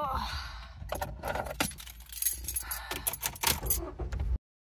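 Small metal pieces jangling and clinking, with scattered clicks and rattles, cutting off abruptly near the end. A brief falling voice sound comes at the very start.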